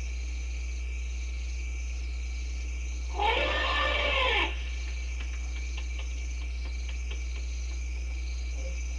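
An African elephant trumpets once, a loud call of about a second and a half whose pitch rises and then falls, over a steady chorus of crickets and a low electrical hum.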